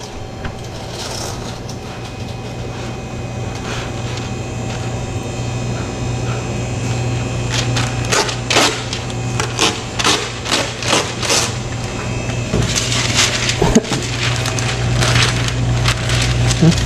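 Baking parchment paper being pulled off its roll and torn against the box's cutter edge, crackling and rustling in irregular bursts through the second half, over a steady low hum.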